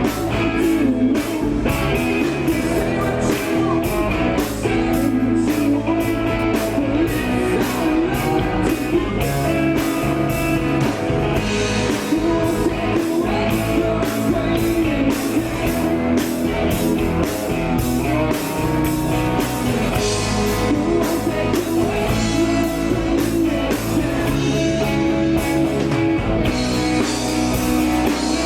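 Rock band playing live: electric guitar, bass and drum kit with a sung vocal, the drums keeping a steady beat.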